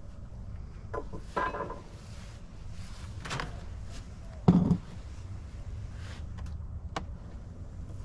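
Handling noises from opening a beehive: a concrete block scraped and lifted off the hive's metal-covered lid, with a heavy thump about halfway through as it is set down, then a click as the lid is lifted off near the end.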